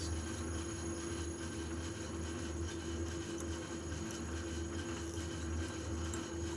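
Boxford lathe running in back gear while a 16mm drill bit feeds into a solid aluminium bar: a steady machine hum with a constant held tone over a low, slightly pulsing drone.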